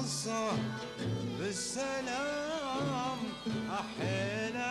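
Male voice singing a Kuwaiti sawt song in long, wavering melismatic lines, over oud and a small string ensemble.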